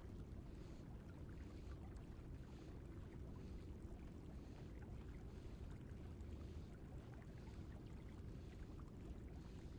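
Faint, steady rush of a river's current flowing, with no distinct events.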